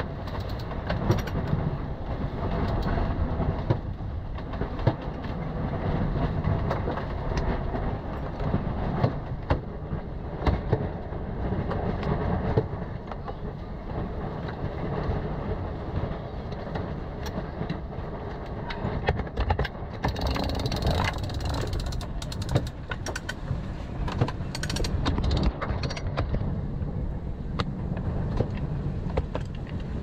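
Sailboat winch being cranked with a winch handle while reefing the mainsail, its pawls clicking in a run of sharp ticks. Steady wind and sea noise from strengthening wind and waves runs underneath.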